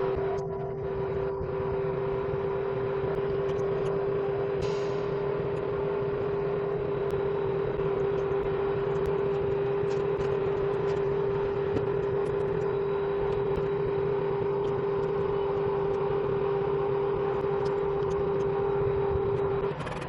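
A steady electric hum with one constant tone over a noisy whir, stopping abruptly shortly before the end.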